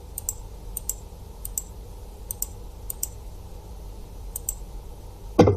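Light computer mouse clicks, about a dozen mostly in quick pairs, spread over a few seconds above a faint low hum.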